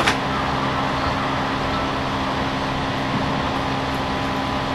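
Steady rush of floodwater flowing across a street, with a low hum beneath it and a brief click right at the start.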